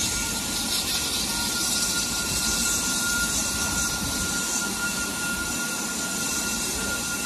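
Steam hissing steadily from around the cylinders of BR Standard Class 9F steam locomotive No. 92203 'Black Prince', with a thin, steady whistling tone in the hiss.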